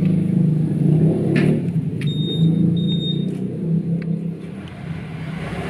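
A motor vehicle's engine running with a steady low rumble, heard up close. A few faint clicks, and a thin high beep sounds twice in the middle.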